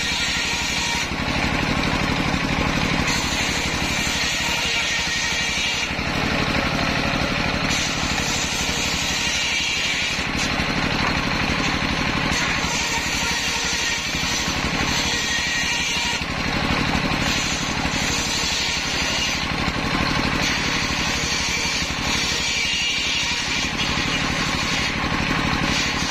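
Large belt-driven table circular saw, powered by a stationary engine, ripping waru (sea hibiscus) boards. The engine runs steadily throughout, and the higher cutting noise of the blade comes and goes every few seconds as boards are pushed through.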